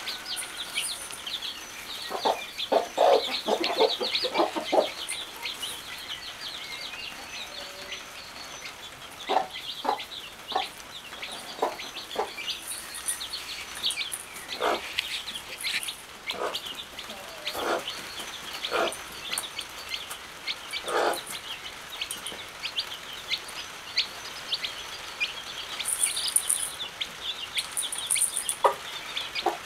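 Chicks peeping constantly in short high cheeps, while a mother hen clucks in short low clucks, a quick run of them a couple of seconds in and scattered single clucks later.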